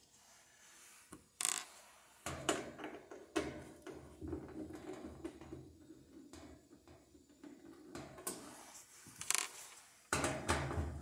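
Screwdriver and hands working on a washer's sheet-metal panel brackets: irregular sharp clicks and clunks with rustling and scraping between, the clearest clicks coming about a second and a half in, around two and a half and three and a half seconds in, and again near the end.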